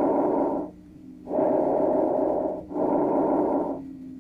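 Bronchovesicular breath sounds heard over the chest through a stethoscope. They are loud and high-pitched, and the breaths in and out are separated by short gaps. A breath phase ends about two-thirds of a second in, and after a pause two more follow almost back to back.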